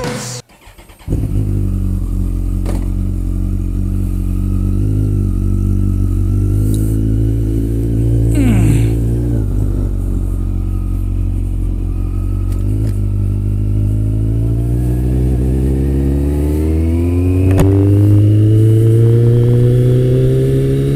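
Kawasaki ZX-14R sport motorcycle's inline-four engine running steadily at low revs. Its pitch rises smoothly from about three-quarters of the way through as the bike pulls away and accelerates.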